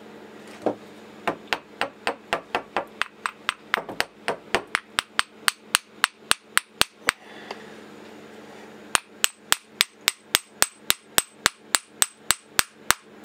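Light, quick metal-on-metal hammer taps on a brass slug, driving a glued brass cylinder liner down onto its mandrel. The taps come about three to four a second in two even runs, with a pause of about two seconds in the middle.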